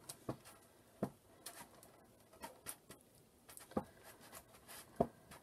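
Faint scraping and clicking of a metal spoon digging into a hollowed lime to break up its pulp, with a few sharper knocks along the way.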